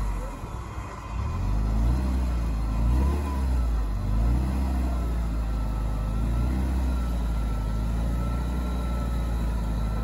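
Diesel engine of an off-road Nissan Patrol, fitted with a BMW M57 straight-six, running under load as the truck works through a rut with one wheel badly placed. The revs rise and fall several times in the first half, then hold steadier.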